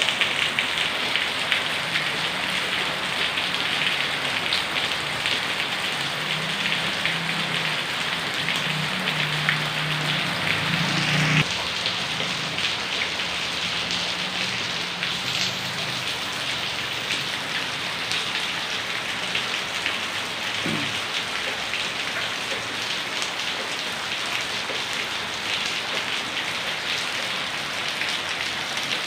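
Heavy rain pouring steadily, a dense even hiss of drops striking surfaces. A faint low hum underneath stops abruptly about eleven seconds in.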